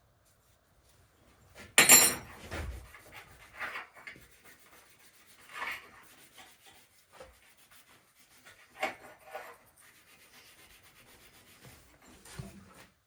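Parts and tools being handled during an NV4500 transmission rebuild: a sharp clatter about two seconds in, then scattered short scrapes and rubs.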